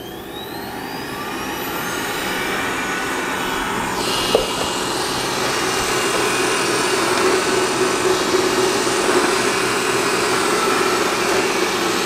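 Roborock S6 Pure robot vacuum starting a cleaning run: its suction fan spins up with a rising whine and grows steadily louder, then runs as a steady hiss and whir as the robot drives off its dock. About four seconds in the hiss gets stronger, and there is a single short click just after.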